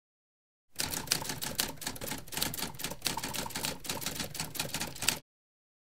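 Typewriter key-clacking sound effect: a fast, uneven run of clicks that starts about a second in and stops abruptly near the end.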